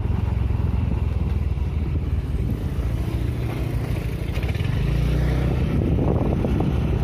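Motorcycle engine running steadily while under way, a continuous low drone.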